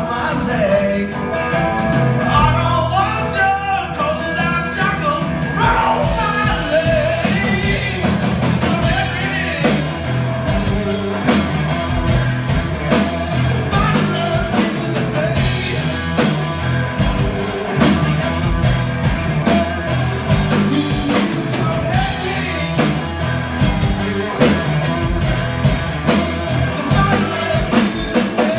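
Live blues-rock trio playing: electric guitar, electric bass and drum kit, with singing over the band, mostly in the first part.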